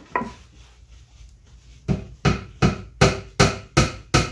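A hammer tapping a glued wooden dowel into a hole in a wooden drawer front. A single knock comes first, then from about halfway a run of even taps, about three a second.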